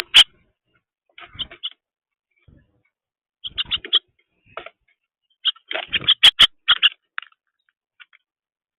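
A bird chirping in several short bursts of quick chirps, with a few sharp clicks, the loudest at the start and about six seconds in.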